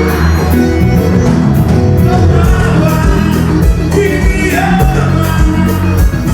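Forró band music with a male singer over a steady drum beat, loud throughout; the vocal slides down in pitch about two thirds of the way in.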